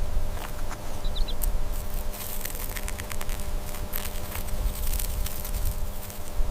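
Scattered crackling and rustling clicks, thickest in the middle, over a steady low rumble and hum, with a brief high chirp about a second in.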